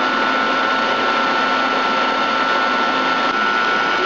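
Steady mechanical whir with a constant high-pitched whine, from a Giddings & Lewis CNC horizontal boring mill running under power.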